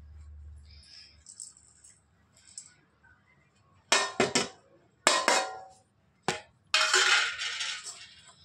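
Sliced potatoes being mixed with spices and flour in a bowl: a few sharp clinks against the bowl around the middle, then about a second of rattling, clattering noise.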